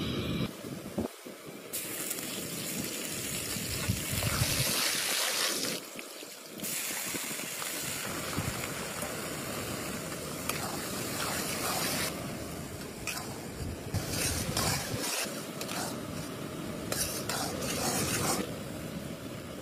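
Liquid sizzling and bubbling in a large metal kadhai over the heat, with a louder hissing spell a couple of seconds in. A long metal ladle stirs and scrapes against the pan, with short clinks later on.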